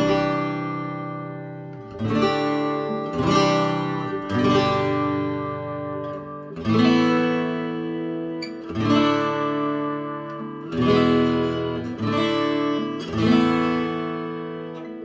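Eastman E20OOSS OO-size steel-string acoustic guitar strummed in full chords, about ten strokes, each chord left to ring and fade for one to two seconds before the next.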